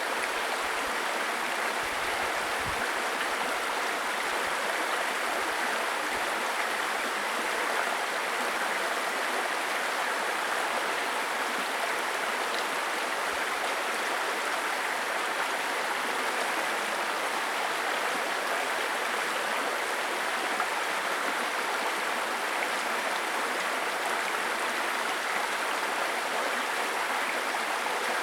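Small stream babbling over stones: a steady, even rush and gurgle of running water.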